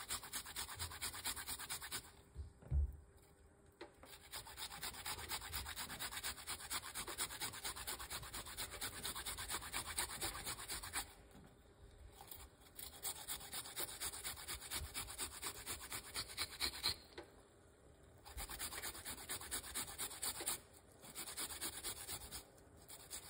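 Fresh ginger root rubbed on a flat stainless-steel hand grater: quick, even rasping strokes in runs, with a few short pauses.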